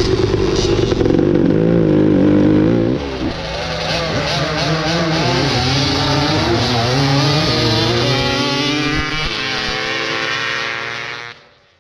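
Two-stroke racing ATV engines at full throttle down a drag strip, their pitch climbing and dropping with the gear changes. The sound changes abruptly about three seconds in and cuts off just before the end.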